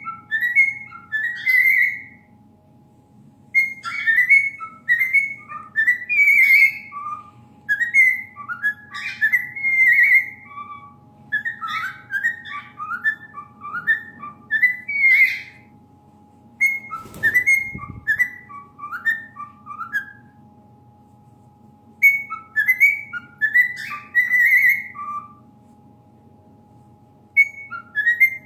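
Cockatiel whistling a tune in phrases of quick rising and falling notes, with short pauses between phrases. A brief thump comes just past the middle.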